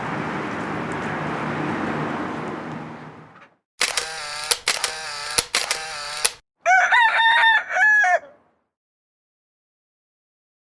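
A steady background rumble fades away over the first few seconds. Then a rooster crows loudly in two parts, and the sound cuts off into silence.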